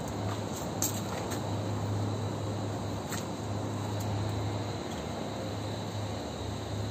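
Urban alley ambience: a steady low hum under an even background noise, with a few faint clicks.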